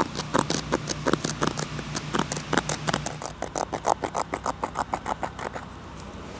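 Scissors snipping through brain-tanned buckskin, a quick run of short crisp cuts, about five or six a second, that stops shortly before the end.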